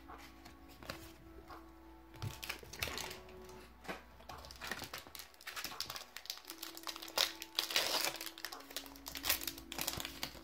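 Foil wrapper of a Pokémon trading-card booster pack crinkling and tearing as it is handled and opened, a run of crisp rustles that grows busier and louder about two thirds of the way in.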